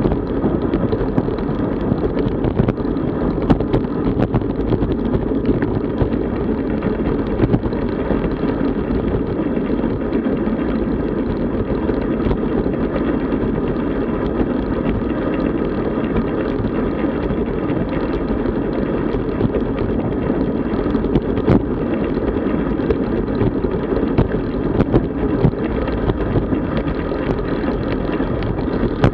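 Steady rush of wind on the microphone and road noise from a road bicycle under way, with scattered small clicks and knocks.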